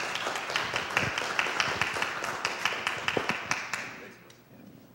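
Small audience applauding, the clapping dying away about four seconds in.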